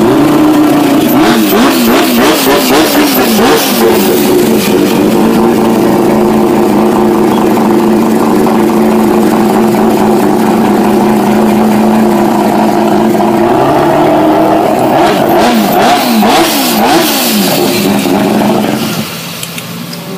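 Turbocharged four-rotor rotary engine of a Mazda RX-7 FD3S revving hard while the car stands still, loud. It is blipped up and down over and over, held at steady raised revs for several seconds, then blipped again, and drops much quieter near the end.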